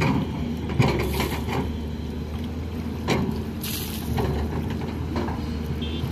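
SANY tracked excavator's diesel engine running steadily, with several sharp knocks and scrapes from the machine working the sand bank.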